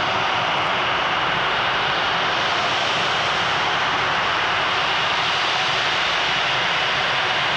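Jet engines of an Airbus A330 taxiing close by at low taxi power: a steady, even rush of engine noise with a faint high whine held throughout.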